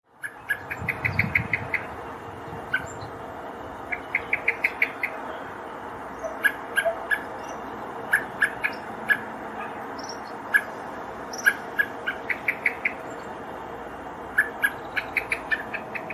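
Male common blackbird giving sharp alarm calls, in quick runs of five to seven notes with single calls between. It is calling for its fledgling.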